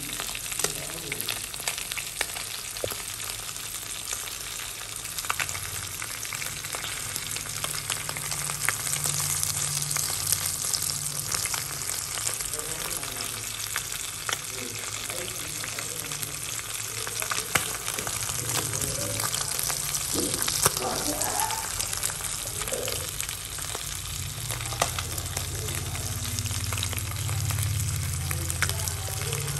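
Small whole fish shallow-frying in hot oil, sizzling and crackling steadily with frequent sharp spits and pops. A low hum runs underneath and grows stronger near the end.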